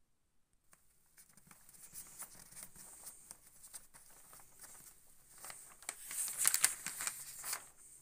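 Rolled bus destination blind being wound through by hand, the sheet rustling and crinkling as it is pulled off the roll. It starts under a second in and builds to its loudest, with rapid crackles, near the end before stopping.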